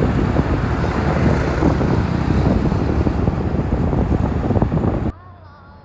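Wind buffeting the microphone in a loud, steady rumble, which cuts off suddenly about five seconds in.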